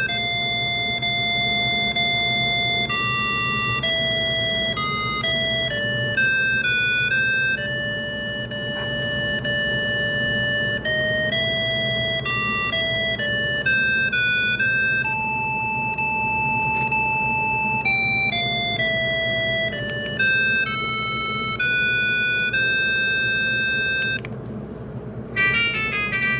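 Wellcom W890 mobile phone ringtone playing from the phone's speaker: a simple synthesized melody of single beeping notes, one at a time, over a steady low background hiss. Near the end it stops briefly and a different ringtone starts with quick rising runs of notes.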